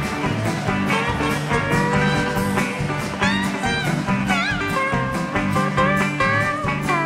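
Live country-rock band playing an instrumental intro over a steady drum beat and bass line. A guitar lead bends notes about three and four seconds in.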